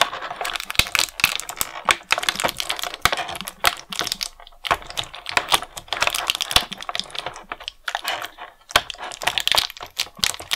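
Clear plastic blister tray crackling and clicking as fingers work a small plastic accessory out of it: a rapid, irregular run of sharp clicks and crinkles, with a couple of short pauses.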